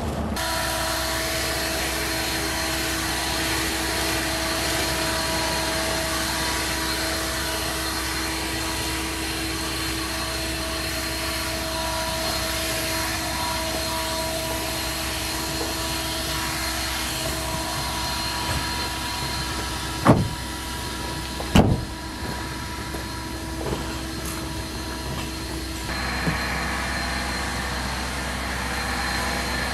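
Leaf blower running steadily, a constant whine over the rush of blown air. Two sharp knocks about two-thirds of the way through.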